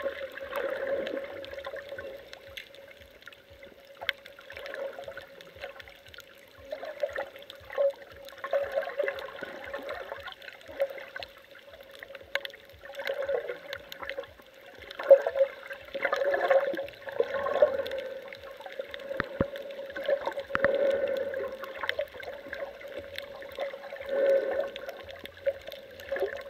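Water gurgling and sloshing, muffled as heard by an underwater camera, in uneven surges every second or two over a steady hum.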